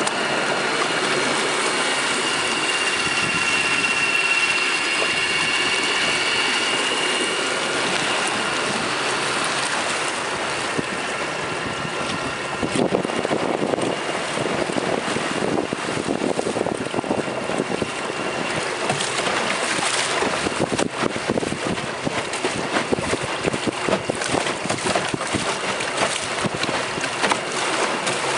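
Water rushing along the hull of a small wooden skiff under way on a Torqeedo 1003 electric outboard, with a steady high whine from the electric motor through the first ten seconds or so. Wind buffets the microphone in irregular jolts, more often from about twelve seconds in.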